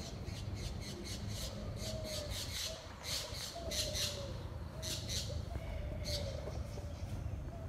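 Birds calling in a tree: short, high-pitched calls in quick runs, repeated over and over, over a steady low rumble.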